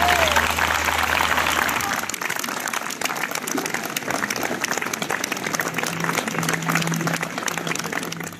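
Audience applauding: a dense spread of hand clapping that eases off slightly toward the end.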